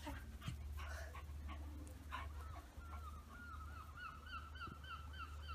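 An animal's repeated high call: short rising-and-falling notes, about three a second, beginning about two seconds in. Before it come a few soft rustles and knocks, with a steady low rumble underneath.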